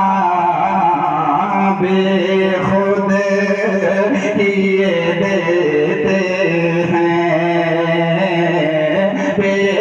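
A man's voice singing a naat (Urdu devotional song in praise of the Prophet) in long, drawn-out notes with wavering ornaments on the pitch.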